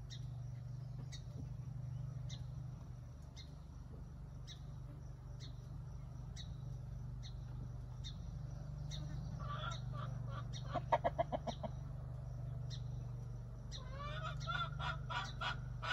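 Chickens clucking: a run of quick clucks about ten seconds in and another near the end, over a low steady hum and a faint high chirp repeating about every two-thirds of a second.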